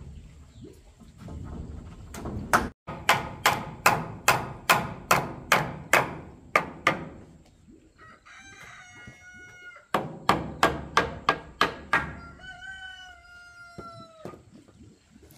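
Two runs of sharp hammer blows driving a chisel into wood, about three blows a second. A rooster crows twice in between, each a long call.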